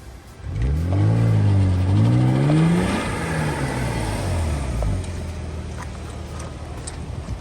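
BMW E46 328Ci's straight-six engine accelerating: the revs climb for about two and a half seconds, then fall away and settle into a steadier lower note.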